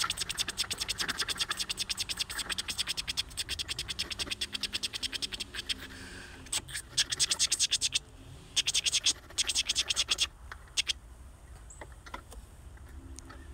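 Curved sickle blade scraping rapidly along the inside wall of a ceramic bonsai pot, cutting the root ball free from the pot for repotting. The quick strokes run steadily for about five seconds, then come in two shorter bursts, and end in a few scattered scrapes.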